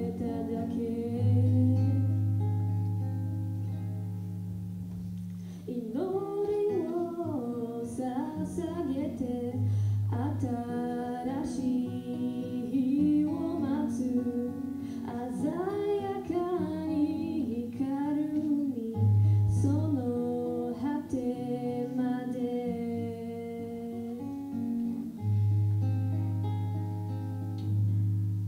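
A female voice sings a slow song into a stage microphone, accompanied by acoustic guitar. She holds a long note for the first few seconds, then sings a moving melody from about six seconds in, over steady low ringing notes.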